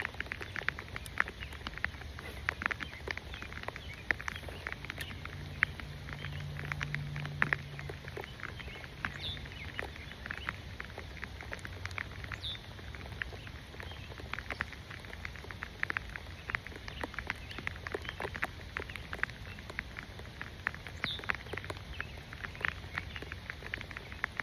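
Rain falling, with many irregular sharp taps of drops landing close by.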